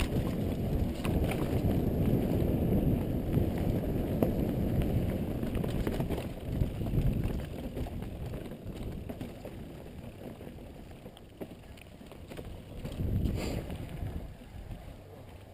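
Downhill mountain bike riding a dirt and rock trail: wind rushing over the helmet camera's microphone with tyre rumble and scattered clicks and rattles from the bike. The rushing eases about halfway through, then swells briefly near the end.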